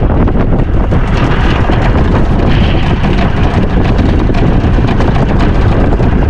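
Strong wind buffeting the microphone on an open fishing boat: a loud, steady rumble.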